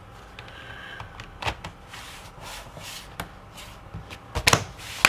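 Plastic clicks and knocks as the laptop's bottom cover panel is set back in place and pressed shut, a few scattered taps with the loudest cluster about four and a half seconds in.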